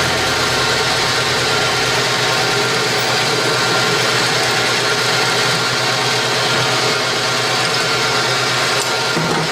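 CNC lathe running during gear broaching: a steady machine drone with several steady whining tones over a wide hiss.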